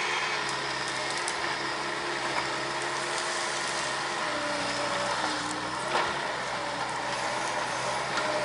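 Bobcat S185 skid steer's diesel engine running steadily, its pitch shifting a little under hydraulic load as it works the Brushshark tree shear through cedar brush. There are a few sharp clicks and one louder crack about six seconds in.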